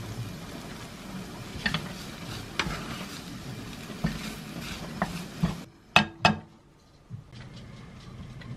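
Wooden spatula stirring and scraping kimchi fried rice around a nonstick frying pan, with a light sizzle from the pan and small clicks of the spatula. About six seconds in come two sharp knocks, then quieter scooping.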